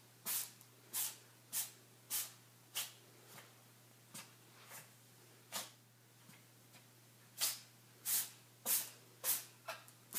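A cat sneezing over and over in a rapid fit, short sharp sneezes coming about one every half second, with a pause of about two seconds partway through before the run resumes.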